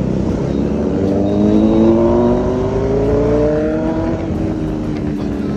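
Motorcycle engine pulling under steady acceleration, its pitch rising smoothly for about three seconds and then levelling off.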